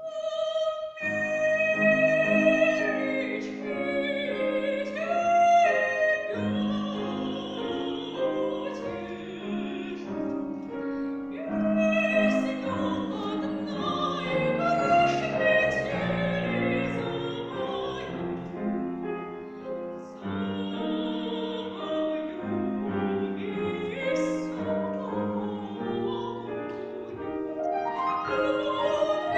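Female voice singing classically with vibrato, sustained notes over piano accompaniment. The performance begins at the very start after a moment of near silence.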